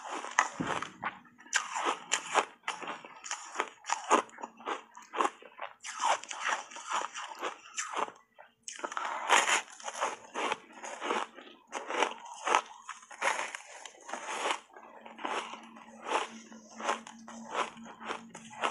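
Refrozen block ice thickly coated in matcha powder, bitten and chewed close to the mouth: a dense run of sharp, irregular crunches, with a brief pause a little before the middle.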